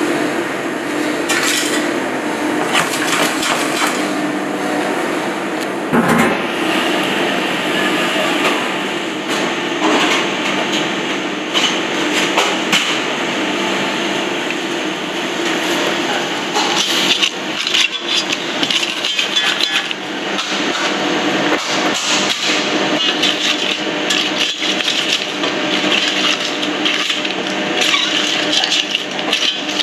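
Crab shells being crushed and stirred with a wooden utensil in a stainless steel saucepan. The wood knocks and cracks the shells against the pan again and again, more busily in the second half.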